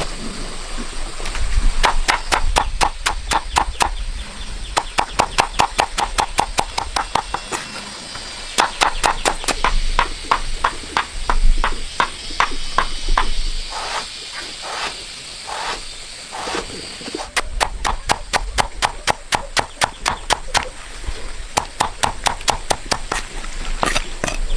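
Rapid chopping with a knife on a cutting board, about eight strokes a second, in runs with brief pauses.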